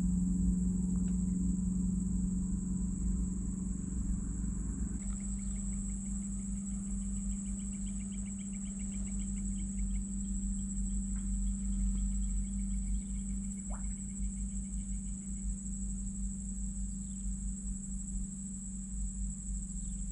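Steady high-pitched drone of insects in the swamp over a steady low hum. About five seconds in the sound shifts, and a fast pulsing trill joins for about ten seconds.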